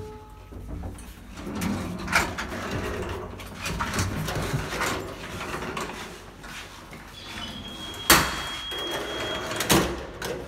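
Footsteps and handling noises in a hallway, then the heavy metal front door of a building being unlocked with a key and opened, with two loud clunks from the door and lock near the end. A thin steady high tone sounds for about two seconds around the first clunk.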